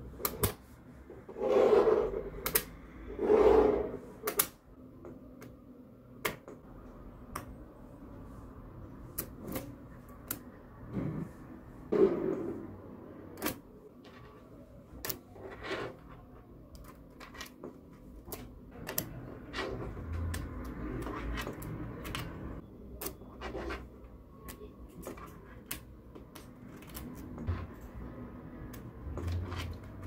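Magnetic balls clicking and snapping against one another as sheets of them are folded and pressed onto a block. There are many sharp, irregular clicks throughout, with louder rubbing and scraping in the first few seconds and again about twelve seconds in.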